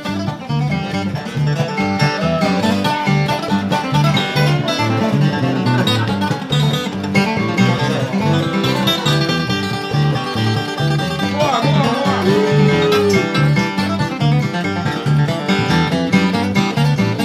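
A country string band playing an instrumental break on acoustic guitars, a resonator guitar and electric bass over a steady bass beat. A few sliding notes stand out about twelve seconds in.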